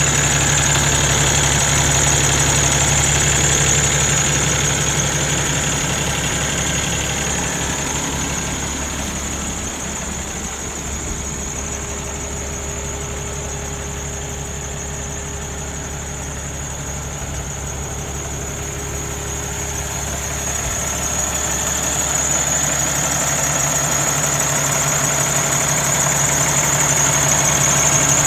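Cummins ISX inline-six diesel engine in a Peterbilt 579 tractor idling steadily, just after a clean start. It grows fainter through the middle and comes back up near the end.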